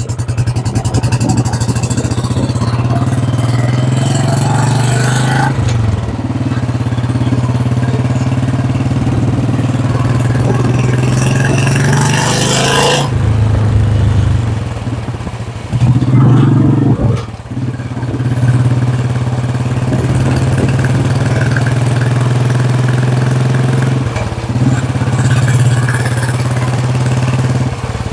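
Royal Enfield Classic 350's single-cylinder engine running under way through a free-flow C-bend header pipe and a replica silencer. The exhaust note is steady and low, and it drops and picks up again several times as the bike is ridden.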